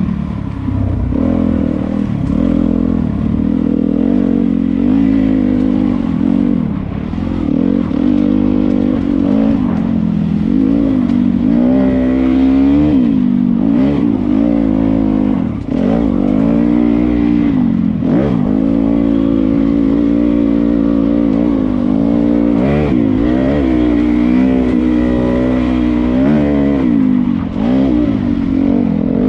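Dirt bike engine under way on a trail, its pitch rising and falling over and over as the throttle is opened and rolled off, with short dips about twelve, eighteen and twenty-three seconds in.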